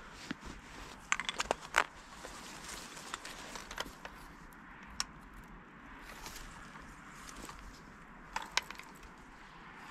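Dry cattail and reed stalks crackling and snapping in short clusters of sharp clicks: a quick run about a second in, single snaps near four and five seconds, and a pair near the end, as the stalks of a reed blind are pressed and shifted.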